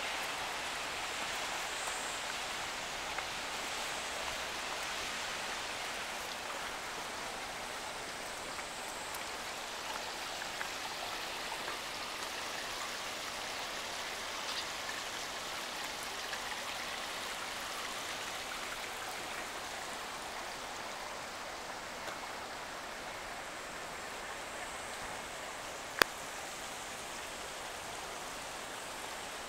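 Steady rush of water running along a shallow ornamental water channel, easing off slightly over time, with one sharp click a few seconds before the end.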